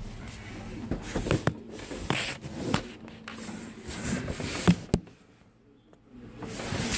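Irregular knocks, clicks and rustling from hands and a moving phone camera handling the truck's dash, with a quieter spell about five seconds in.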